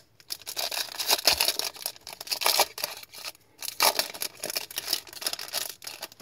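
Foil wrapper of a hockey trading-card pack crinkling and tearing as it is ripped open by hand, in irregular crackling bursts.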